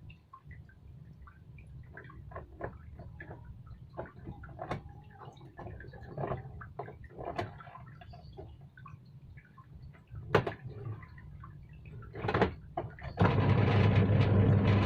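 Scattered clicks and knocks from handling a washing machine under repair, with one sharp knock about ten seconds in. Near the end a loud, steady low hum with rushing noise starts suddenly and runs for about two seconds as the repaired machine is tried.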